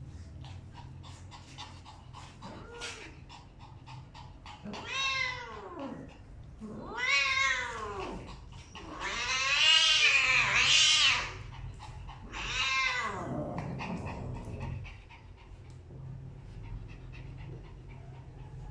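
A domestic cat yowling: about four long drawn-out calls that rise and then fall in pitch. The loudest and longest, about two seconds, comes near the middle.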